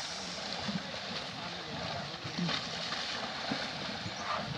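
Steady noise of water and wind on the microphone, with faint voices underneath.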